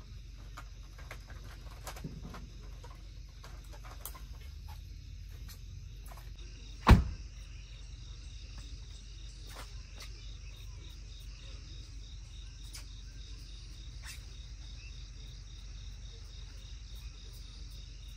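Crickets and other insects chirring steadily, with scattered light clicks and knocks from handling awning and camp gear, and one sharp, loud knock about seven seconds in.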